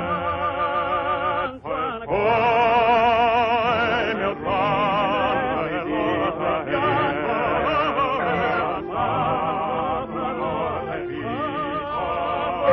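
Operatic singing, a man's voice with wide vibrato in long held phrases broken by a few short breaths, over accompanying music.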